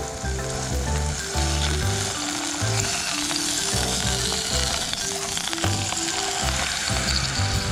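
Beef steak and garlic cloves searing in hot oil in a pan, a steady sizzle, with background music carrying a bass line and a melody underneath.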